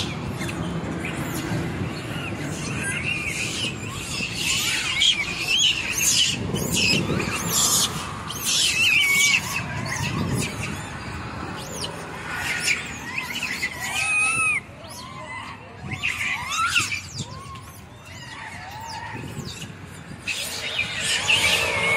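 A troop of rhesus macaques calling: many short, high squeals and chirps overlapping throughout, with scattered clicks and a low rumble underneath.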